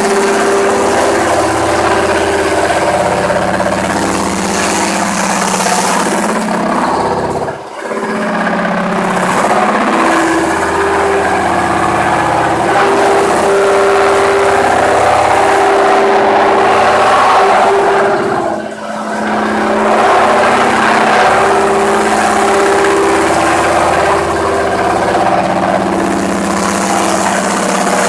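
Four-head automatic stone calibrating machine running: the head motors hum steadily while the heads grind stone slabs passing beneath under water spray. The loud, even noise dips briefly twice.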